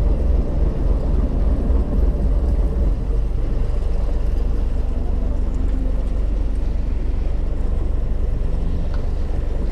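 Fishing boat's engine running, a loud, steady low rumble.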